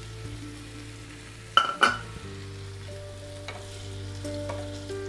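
Potatoes in a spiced gravy sizzling in a non-stick frying pan while a spatula stirs in freshly added water. Two sharp knocks of the spatula on the pan come close together about one and a half seconds in.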